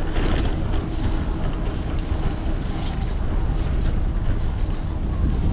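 Steady wind noise on a bike-mounted action camera's microphone over the rumble of a fixed-gear bicycle's tyres rolling on brick pavers.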